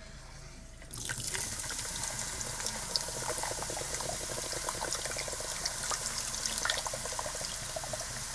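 Can of Coca-Cola poured into a slow cooker's ceramic crock, the cola splashing steadily onto a chuck roast and onion soup mix; the pour starts about a second in.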